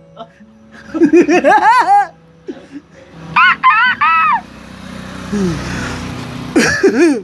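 Three bursts of rapid 'ha-ha-ha' laughter, high-pitched, over faint steady background music.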